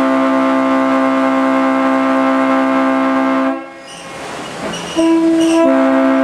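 A multi-tone train horn sounding for a grade crossing. A long blast cuts off about three and a half seconds in, and a second blast starts about a second and a half later and fills out into the full chord.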